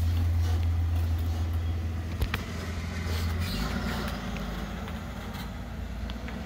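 Flatbed tow truck's engine running as it drives past, a steady low hum that drops to a lower pitch about three and a half seconds in.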